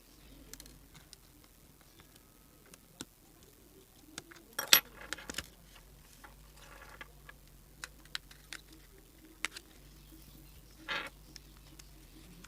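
Scattered small clicks and taps of plastic parts and small tools as a keypad mobile phone's housing is opened up, with a cluster of louder clicks about five seconds in and a short rattle near the end.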